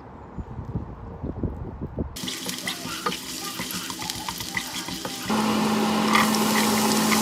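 Kitchen tap turned on about two seconds in, water running into a sink; the flow gets louder about five seconds in, with a steady low hum under it.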